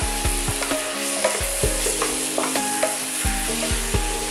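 Onion-tomato masala with ground spices sizzling in oil in a nonstick pan. A wooden spatula stirs it and taps against the pan about three times a second.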